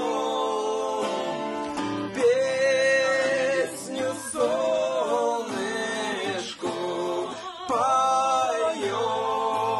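A man singing a song in long held notes, with acoustic guitar accompaniment.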